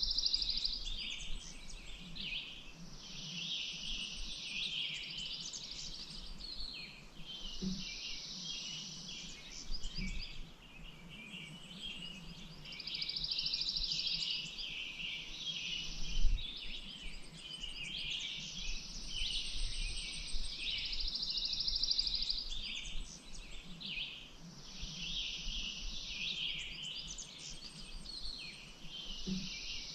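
Several songbirds singing with many quick chirps, joined every few seconds by a buzzy trill lasting about two seconds. A single low thump sounds about halfway through.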